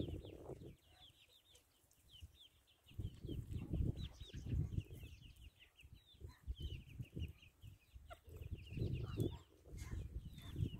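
Chicks peeping among a flock of chickens: a quick, unbroken run of short, high, falling peeps, several a second, over gusts of low rumble.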